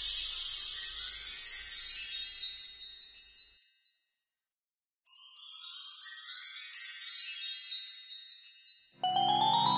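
Magic-wand sparkle sound effect: a shower of high tinkling chimes fades out about four seconds in. After a moment of silence, a second cascade of twinkling chime notes starts. Near the end a short tune with lower notes begins.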